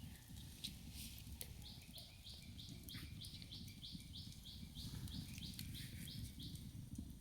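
A bird calling faintly in a long run of short, high chirps, about three a second, which stops about three-quarters of the way through, over a low background rumble.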